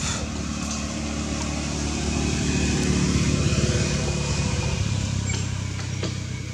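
An engine running steadily, getting a little louder around the middle, its pitch shifting about five seconds in, with a few faint clicks.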